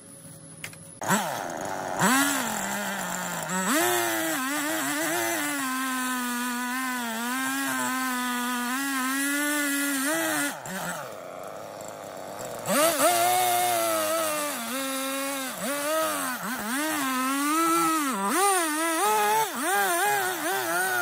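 Husqvarna two-stroke chainsaw cutting down into a log section, running at high revs with its pitch dipping and recovering as the chain bites into the wood. It starts suddenly about a second in, falls away briefly in the middle, then picks up and cuts again.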